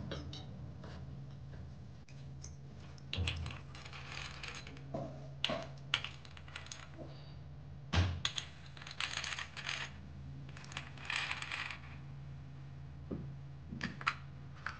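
Light clinks, taps and short scrapes as a brass hand sev press is packed with besan dough and its screw top fitted, over a steady low hum.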